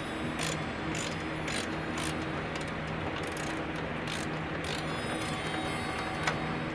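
Grandfather clock movement clicking: irregular sharp metallic clicks from its mechanism, over a steady low hum.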